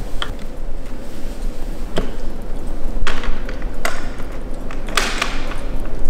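Metal latches and lid of a hard flight case clicking and knocking as it is unlatched and opened: about five separate sharp clicks over a steady background noise, the longest and loudest about five seconds in.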